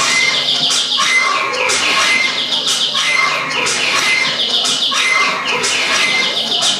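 Bird-like chirping and clucking, like poultry, repeating in an even pattern about once a second, heard as a recorded soundtrack.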